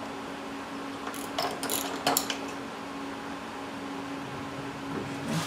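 Socket ratchet wrench clicking in short runs, mostly between about one and two and a half seconds in, as bolts on a Briggs & Stratton engine's cylinder block are worked loose. A steady low hum runs underneath.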